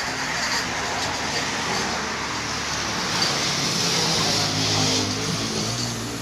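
A motor vehicle going by on the road. Its engine and road noise build to their loudest about four seconds in and then ease, with a low engine hum from about halfway.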